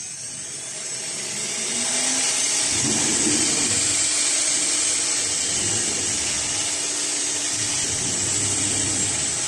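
A woodworking machine running steadily, a high-pitched hissing whine that builds up over the first two seconds and then holds.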